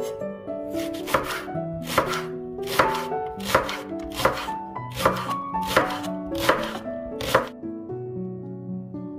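Chef's knife slicing through two leeks held side by side, each cut ending in a knock on a wooden cutting board. There are about nine even cuts a little under a second apart, and they stop about seven seconds in. Soft background music plays underneath.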